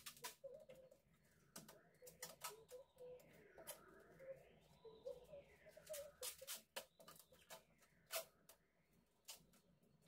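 Panasonic top-load washing machine running faintly, its motor whine rising and falling in pitch every couple of seconds as the drive reverses back and forth, with scattered light clicks.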